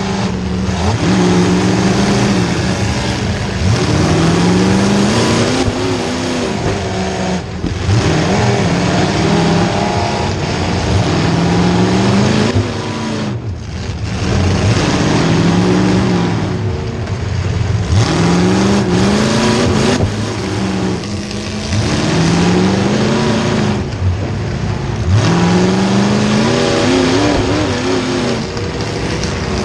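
Small-block Chevy V8 of a demolition derby car revving hard again and again, its pitch climbing and dropping every couple of seconds as it accelerates and backs off.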